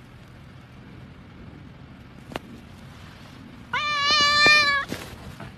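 A cat lets out one drawn-out, slightly wavering meow about four seconds in, lasting about a second: a complaint at being licked back.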